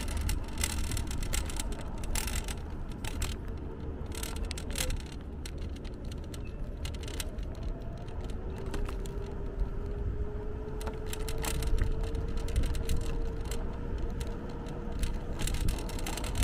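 Electric scooter on the move: a steady low rumble with frequent small clicks and rattles, and a faint whine that rises slowly in pitch in the second half.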